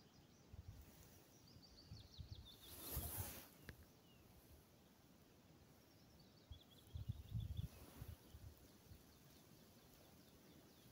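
Faint riverside quiet with a small songbird singing twice, each song a quick run of short notes falling in pitch. A brief rush of noise comes about three seconds in, and low bumps on the microphone around seven seconds.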